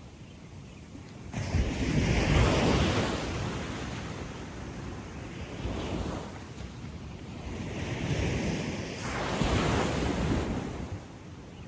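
Small surf breaking and washing up a sandy beach: a wave comes in suddenly about a second and a half in and slowly fades as it runs up the sand, a smaller swell follows midway, and another wave breaks near the end and drains away.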